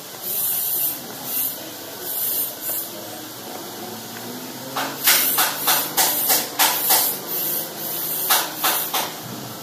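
A spoon scraping and scooping rice in a plastic food container: scattered light scrapes at first, then a quick run of about a dozen short, sharp scraping strokes from about halfway through.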